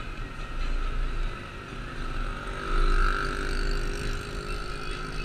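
Motorcycle riding through town traffic: engine and road noise under a low wind rumble on the microphone. It gets louder around the middle.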